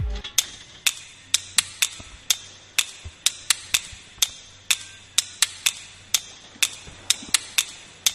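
Background electronic dance music stripped to its percussion: sharp clicking hits on a steady beat about two a second, with an extra off-beat hit now and then.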